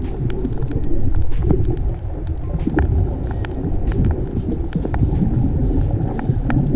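Underwater sound picked up by a camera below the surface: a steady muffled rumble of moving water with scattered sharp clicks.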